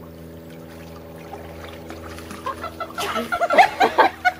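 A Weimaraner puppy giving a quick run of short, high-pitched squeals and yips in the last second and a half, over a steady low hum.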